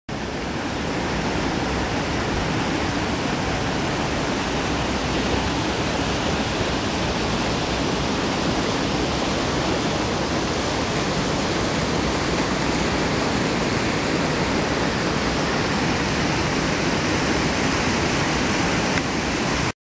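Mountain creek rushing over rock ledges and small cascades: a steady, even roar of running water.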